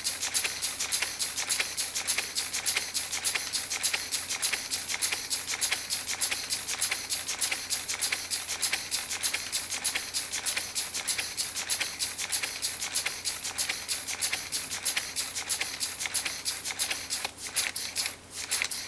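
Lego pneumatic engine running: the twin pneumatic cylinders and their valve puff air out in a rapid rhythm of short hissing clicks, about five a second, with plastic parts clattering. The rhythm slows and falters near the end.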